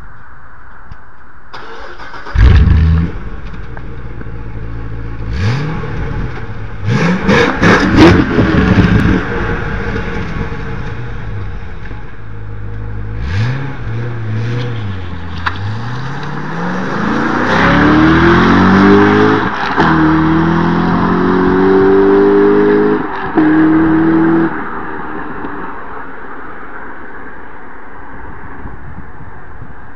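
Corvette C6 Z06's 7.0-litre LS7 V8 through its stock exhaust, starting with a loud burst about two seconds in, then blipped sharply several times. It then accelerates hard, its pitch climbing in long sweeps broken twice by brief dips at the gear changes, before cutting back sharply near the end.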